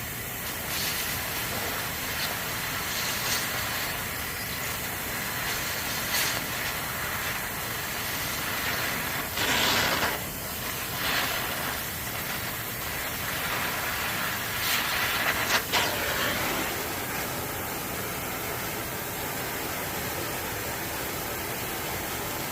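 Gas torch flame hissing steadily as it melts the head of a seized bolt, with a few brief louder surges and pops, the biggest about ten seconds in.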